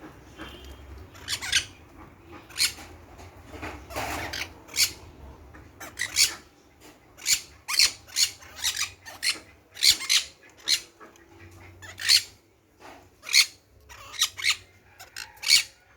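Small cage birds in a shared parrot-and-quail aviary giving short, sharp, high-pitched chirps and squeaks, roughly one a second at an irregular pace.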